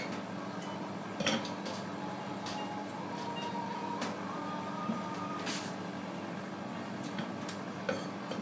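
A steady low kitchen hum, with scattered light knocks and clatter from knife and hand work on a wooden cutting board while a large pike conger is filleted. The sharpest knock comes about a second in, and there is a short hiss midway.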